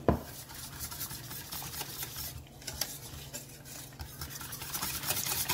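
Wire whisk beating yogurt, gram flour and water into a thin batter in a stainless steel saucepan: quick, continuous clinking and scraping of the wires against the metal pan. A single knock sounds right at the start.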